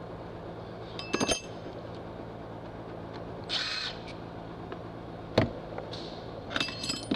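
Metal hand tools clinking and rattling on a steel workbench: a ringing clink about a second in and a cluster of clinks near the end, with a short scrape midway and a single sharp knock about five seconds in. A steady low shop hum runs underneath.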